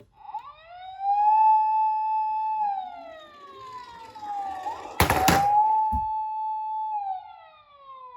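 Siren wailing: a tone that rises, holds and slides down, then rises, holds and falls again, with a loud thump about five seconds in and a smaller one a second later.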